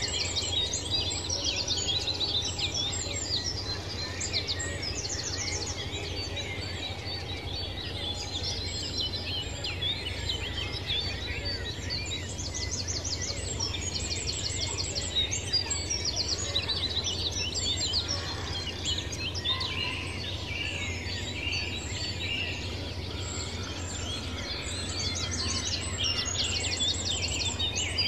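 A chorus of many birds chirping and singing at once, with rapid high trills coming back every few seconds, over a steady low rumble.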